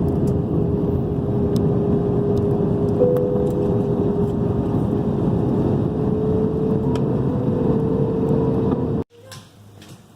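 A vehicle running steadily: a loud, even rush of noise under a steady whine, with a second, slightly higher whine joining about three seconds in. It stops abruptly about nine seconds in.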